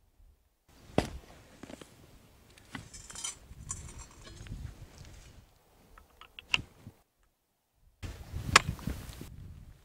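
Steel tool heads clicking and knocking against the handle and fittings of a multipurpose shovel-and-pick tool as they are fitted and locked on, with a stretch of scraping as the shovel head digs among rocks a few seconds in. Several sharp clicks stand out, the loudest near the end.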